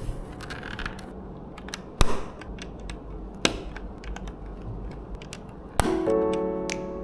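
Plastic Lego bricks clicking and knocking as pieces are handled and pressed together, with one sharp snap about two seconds in and another about a second and a half later. Background music comes back in near the end.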